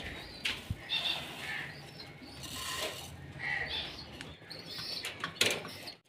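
Faint chirps of small caged birds over the rustle of a plastic bag as millet seed is poured into a feed dish, with a couple of sharp clicks near the start and near the end.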